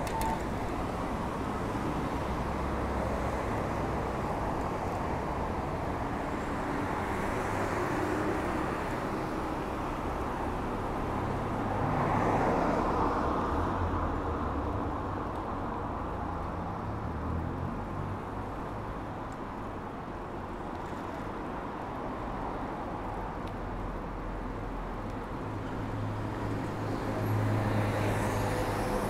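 Road traffic: a steady hum of cars, swelling louder as vehicles pass about twelve seconds in and again near the end.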